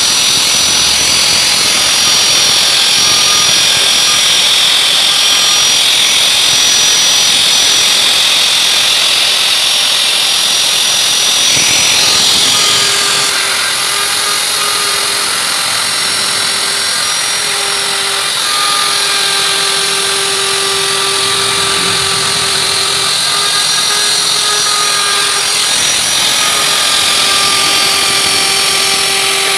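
Hand-held electric router running at speed, its small carving bit cutting a relief design into a wooden board: a steady high whine mixed with cutting noise. About halfway through its tone shifts a little and a lower steady hum comes in.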